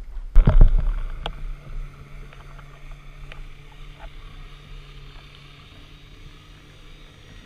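A burst of water sloshing and rushing against an underwater camera about half a second in, fading over the next second. After it comes underwater ambience: a steady low hum with scattered faint clicks.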